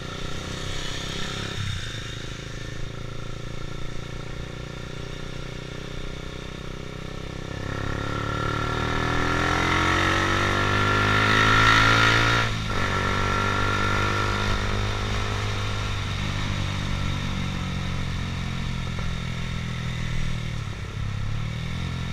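A Honda CBR150R's single-cylinder four-stroke engine running on the move, in traffic. The engine sound swells to a peak about twelve seconds in, then drops suddenly and settles back to a steady run.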